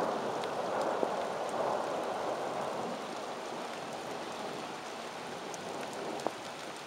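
Heavy rain falling steadily on roofs, driveways and the road during a thunderstorm, easing slightly, with a couple of faint sharp clicks.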